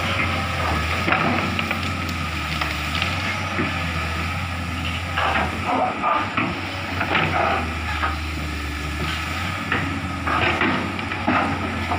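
Komatsu hydraulic excavator's diesel engine running steadily as it swings its boom and bucket, with scattered crackling and clattering throughout.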